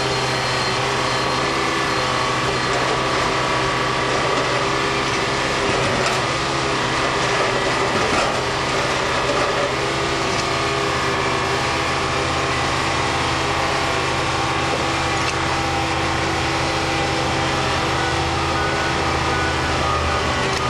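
Harsco Rail NTC track-laying machine's tie gantry and tie cars at work: a steady machine hum with several held tones, and a few clicks and knocks around the middle.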